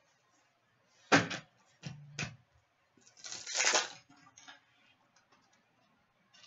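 Trading cards handled by hand: a sharp knock about a second in, a couple of softer taps, then a longer papery rustle of cards sliding against each other around three to four seconds in.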